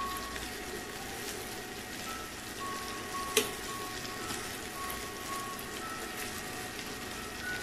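Shrimp sizzling in garlic butter and olive oil in a non-stick frying pan, with one sharp click about three and a half seconds in as the metal tongs knock the pan. Soft background music with light chime-like notes plays along.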